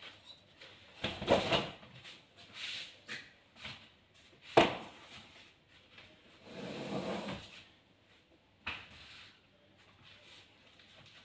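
Sofa cushions and flat boards being lifted and set down: a few knocks and thuds with a stretch of rustling, the sharpest knock about four and a half seconds in.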